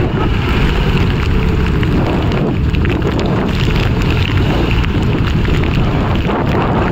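Off-road buggy's engine running under load as its tyres churn through a muddy water pit, heavily mixed with wind buffeting the microphone.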